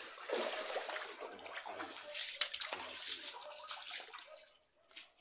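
Rainwater splashing and sloshing in a flooded house, the flood caused by rain leaking into the rooms. The splashing dies away about four and a half seconds in, and a brief knock follows just before the end.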